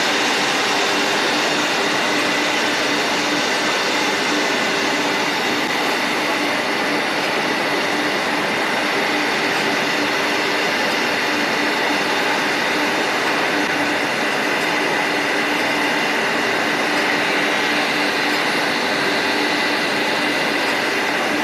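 Six-spindle CNC wood mortising machine running continuously, its spindles cutting mortises in wooden bed slats: a steady, dense machine noise with a constant low hum and a constant high whine.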